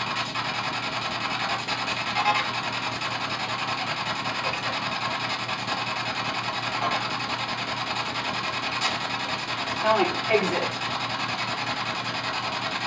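P-SB7 spirit box sweeping through radio stations: a steady hiss of static chopped into a fast, even flutter. About ten seconds in, a brief voice-like fragment breaks through, the kind of snippet that ghost hunters listen for as a spirit's answer.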